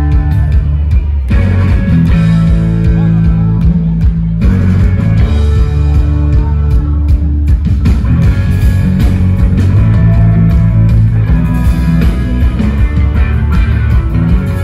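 Rock band playing live over a loud PA: electric guitars, bass and drums, heavy in the low end.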